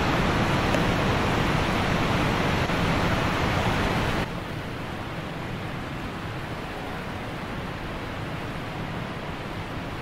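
Steady rush of the Devil's Punchbowl's thin ribbon waterfall falling past icicles into the ice-ringed pool below. About four seconds in it drops suddenly to a fainter steady hiss.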